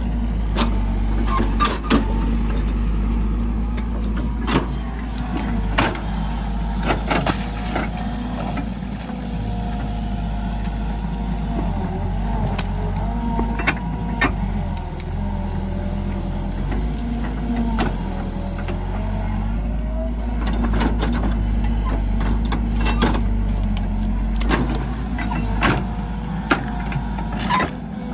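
Hydraulic excavator digging: its diesel engine runs steadily under load while the hydraulics whine, rising and falling in pitch as the boom and bucket move. Sharp knocks from the bucket and linkage come at irregular moments throughout.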